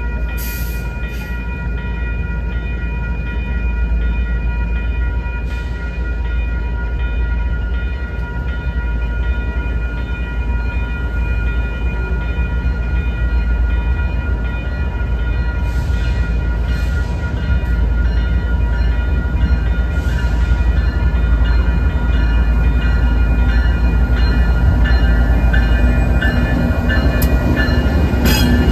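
Grade-crossing warning bells ringing steadily over the low rumble of an approaching BNSF freight train's diesel locomotives. The rumble grows louder as the lead locomotive reaches the crossing near the end.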